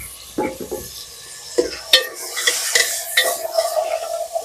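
Metal ladle scraping and knocking against a metal cooking pot as chickpeas, tomatoes and onions are stirred, with several sharp clinks, while the mixture sizzles in oil.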